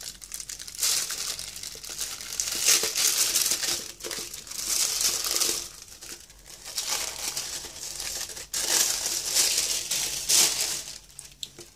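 Thin translucent paper wrapping crinkling in several bursts as hands unfold it and slide out sheets of scrapbook paper.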